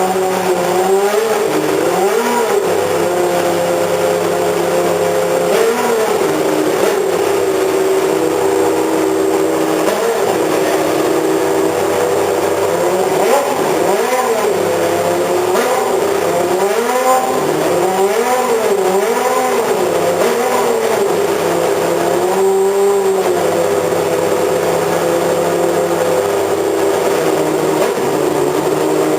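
Formula racing car engine running at a steady high idle, with repeated short throttle blips that make the pitch swing up and back down.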